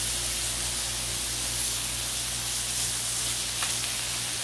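Beef smash burger patties sizzling steadily on a hot Blackstone flat-top griddle, with a brief scrape of a metal spatula near the end.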